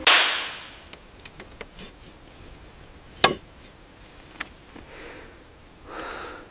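A steady high-pitched insect drone of jungle ambience, with scattered light knocks and one sharp chop-like knock about three seconds in. It opens with a short noisy rush that fades within a second.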